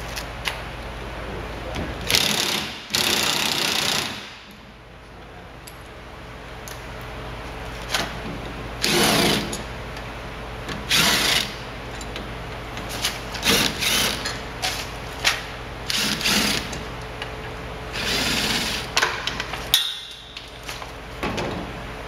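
Cordless drill/driver running in several short bursts of a second or two, driving bolts into a Jeep Wrangler JK windshield bracket, with clicks and knocks from handling between the bursts.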